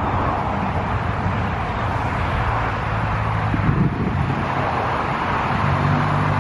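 Road traffic going by: a steady rush of passing cars with a low engine hum underneath.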